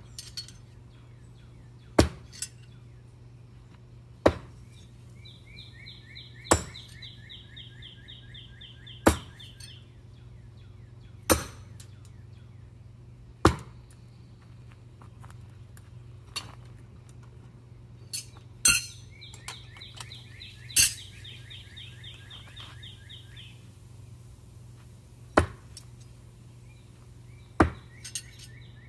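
Throwing knives thunking into a target board one after another, six sharp strikes about two seconds apart, then a pause with a few lighter metallic clinks before more strikes follow. The knives are thrown no-spin style.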